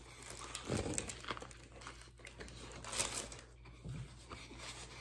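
Paper wrapping crinkling and rustling in short, scattered bursts as it is handled.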